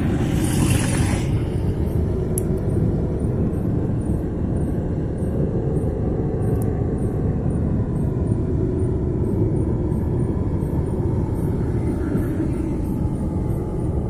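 Steady low rumbling noise, with a brief hiss in the first second and a single sharp click a couple of seconds in.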